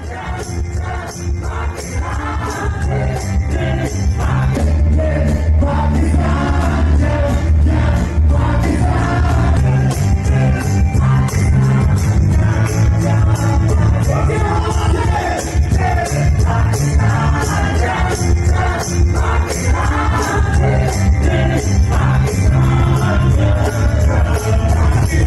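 A live band performing an upbeat song: several voices singing together over a steady beat and a moving bass line. It grows louder over the first few seconds.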